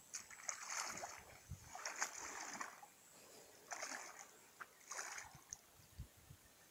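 Water sloshing and splashing as a person wades through shallow water, four splashes about a second and a half apart.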